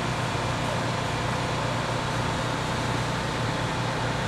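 Steady street noise with a low engine hum from a motor vehicle running.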